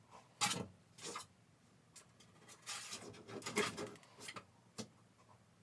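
Makeup blending brush rubbing and swirling in a pressed-powder eyeshadow pan, in several short scratchy strokes with a brief longer bout in the middle and a light tick near the end.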